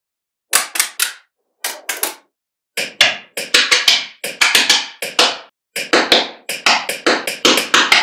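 Small magnet balls clicking as slabs of them are pressed and snapped onto a magnet-ball block: quick clusters of sharp clicks with short silences between, sparse at first and coming almost without pause from about three seconds in.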